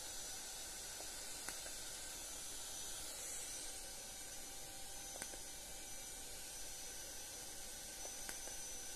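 Philips Lumea Advanced IPL hair-removal handset clicking softly as it fires its light pulses, three times a few seconds apart, over a steady faint hiss.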